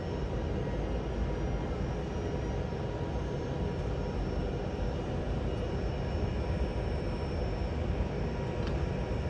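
Airbus A320-200 jet engines after takeoff, heard as a steady, even rumble with a faint steady whine on top.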